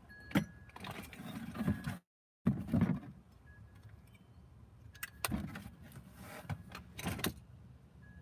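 Handling noise from sorting through a cardboard box of keepsakes: papers rustling and cardboard scuffing, with light clinks and jangles of small metal items. It comes in several short bursts, and the sound cuts out completely for a moment about two seconds in.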